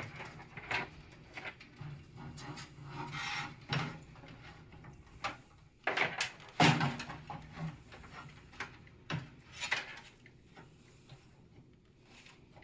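Rubbing, scraping and scattered light knocks and clicks as a radiator and its cables are handled and fitted against a PC case, with a louder knock about six and a half seconds in.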